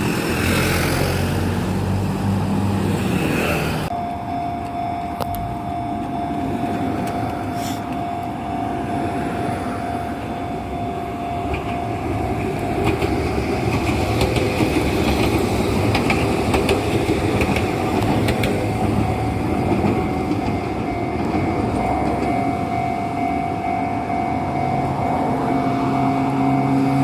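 A Japanese level-crossing warning bell starts ringing about four seconds in and keeps ringing, over the rumble of an Enoden train and road traffic passing the crossing.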